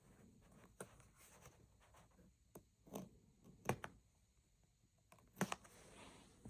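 Quiet handling of RAM packaging: a few scattered soft clicks and rustles of plastic, with the loudest one near the middle.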